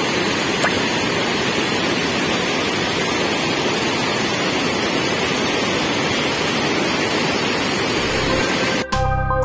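Steady, loud rush of floodwater released from a dam's spillway, surging over rocks downriver. About half a second before the end it cuts off abruptly and a short electronic music sting begins.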